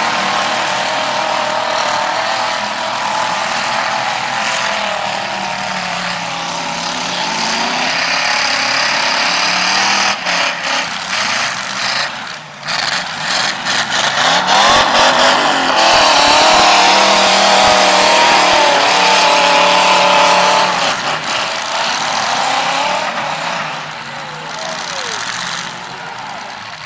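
Several demolition derby cars' engines revving hard and running at high revs, with one rev rising sharply about halfway through.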